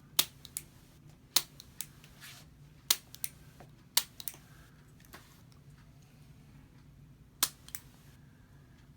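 A handheld chiropractic adjusting instrument clicking sharply as it is applied along a dog's spine: about a dozen single clicks at irregular intervals, five of them louder than the rest.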